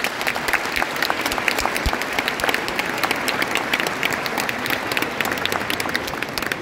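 A large crowd applauding, dense and steady clapping from many hands.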